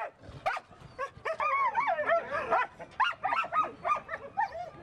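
Several sled dogs yipping and whining at once, short high calls that rise and fall and overlap one another, with a sharp yelp or two near the start.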